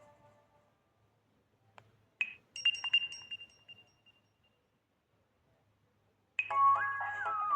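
Alcatel Pixi 3 (4) phone playing its built-in tones: a short glassy chime of a few quick high pings about two seconds in, ringing out over a second or two. Near the end a new melodic tone starts abruptly, as loud as the chime.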